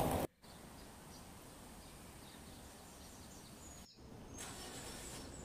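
Quiet street ambience with faint bird chirps scattered through it. A loud rush of noise cuts off abruptly at the very start, and the background steps up slightly at a cut about four seconds in.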